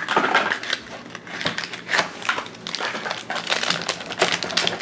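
Toy packaging being opened by hand: a small cardboard box pulled apart, then a foil blind bag crinkling, making a dense, irregular run of crackles.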